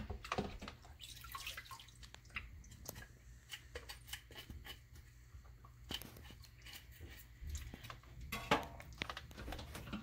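Kitchen knife scraping leftover scales off a whole snapper held in a bowl of water: an irregular run of short scrapes and clicks, with a little water dripping and splashing.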